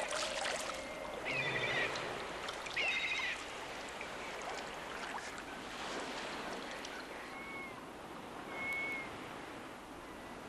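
Rainforest ambience: a steady hiss with two short warbling animal calls in the first few seconds and a few brief whistled notes later.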